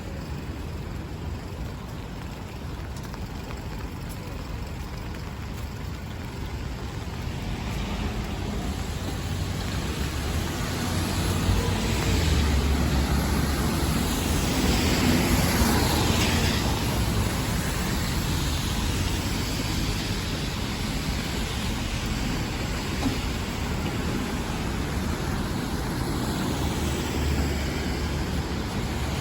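Rain-soaked street noise with a vehicle passing on the wet road: the swish of tyres on water swells from about seven seconds in, peaks midway with a falling pitch as it goes by, then settles back into a steady hiss.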